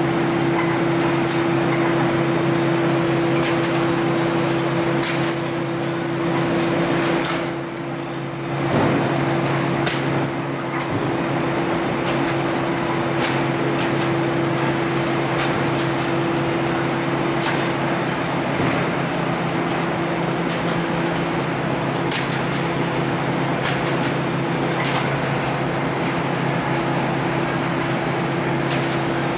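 Cement bag-loading belt conveyor and packing-plant machinery running with a steady drone of several low hum tones, with scattered sharp knocks as bags come off the belt and are dropped onto the stack.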